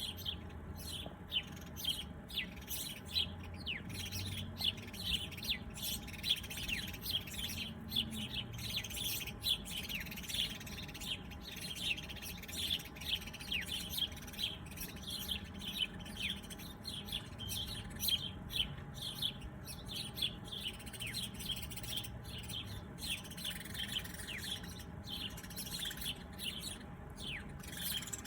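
A chorus of small songbirds chirping and twittering in quick, overlapping calls, many short notes sliding down in pitch, keeping up without a break.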